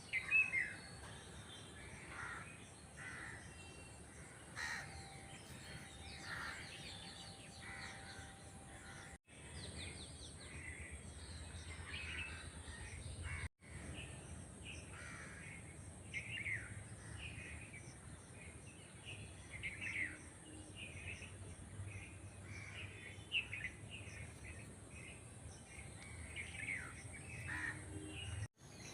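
Birds calling outdoors, many short, repeated falling calls overlapping one another, broken off briefly three times by edit cuts.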